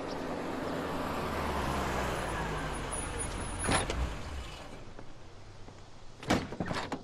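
Vintage sedan rolling slowly over cobblestones and coming to a stop about four seconds in. Near the end come two sharp thuds of a car door being shut.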